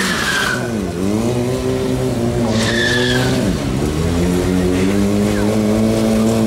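Stunt motorcycle engine revving, its pitch dropping and climbing twice before holding a steady high note, with two short tyre squeals, one at the start and one about two and a half seconds in.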